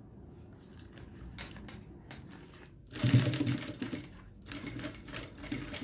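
Industrial straight-stitch sewing machine stitching a seam through layers of synthetic fabric. It is quiet at first and runs loudest from about three seconds in.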